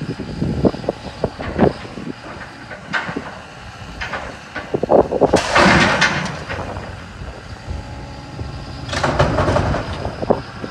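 A storm-damaged building coming down: a run of knocks and bangs, with two longer, louder crashes about five and nine seconds in.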